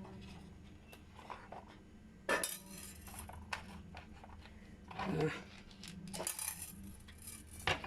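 Leftover craft supplies being gathered and put into a container: irregular clatter, clicks and knocks of small plastic and hard items, with a few louder knocks about two and five seconds in and near the end.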